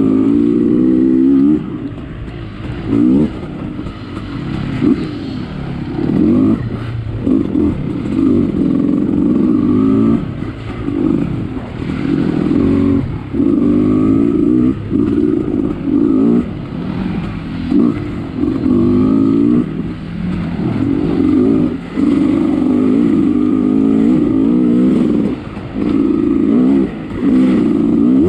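Dirt bike engine revving up and easing off again and again as it is ridden along a rough trail, its pitch climbing with each burst of throttle every second or two.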